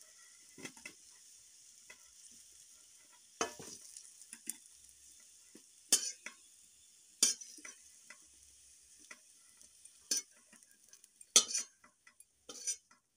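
Hot oil sizzling in a kadhai while a spatula scoops fried potato cubes out of it, with several sharp scrapes and knocks of the spatula against the pan, the loudest about eleven seconds in. The sizzle fades near the end as the pan empties.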